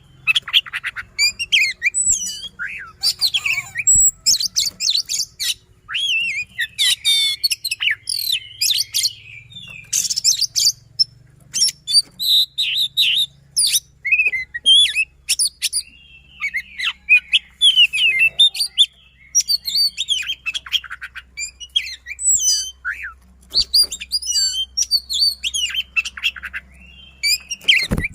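Oriental magpie-robin singing a fast, dense song of high whistled and harsher notes, with rapid rolls and sharp shot-like notes and only brief pauses.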